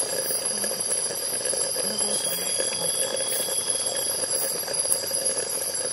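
Campfire hissing and smoking under bamboo tubes of lemang as they roast. Over it runs a steady high-pitched trilling of several held tones with faint regular ticks, and a thin whistling tone rises slightly for about two seconds in the middle.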